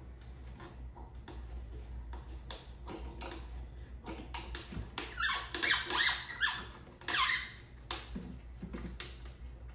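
Screw being turned by hand into a particleboard bookcase panel: a run of light clicks, then loud squeaks with falling pitch about halfway through as the screw bites into the board.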